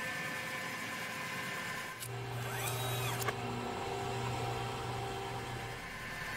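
Quiet electronic synthesizer tones: several sustained notes with faint pitch sweeps that rise and fall, and a low steady tone coming in about two seconds in and stopping near the end.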